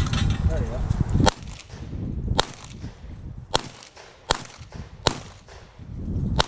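Six single handgun shots, spaced roughly a second apart, with wind rumbling on the microphone in between.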